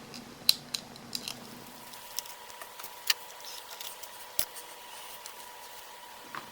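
Small parts and tools being handled at a workbench: a scatter of light, sharp clicks and taps. From about two seconds in, a faint steady high tone runs underneath and stops just before the end.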